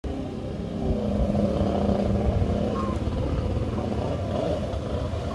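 Krash Footrocket 50 Cal freestyle jet ski engine running steadily under throttle as the ski is ridden across the water.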